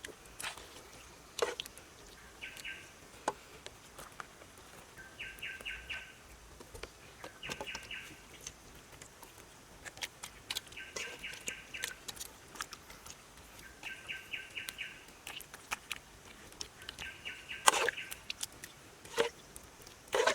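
An animal call: short trills of rapid pulses, repeating about every two to three seconds, mixed with scattered sharp clicks and knocks. The loudest knock comes near the end.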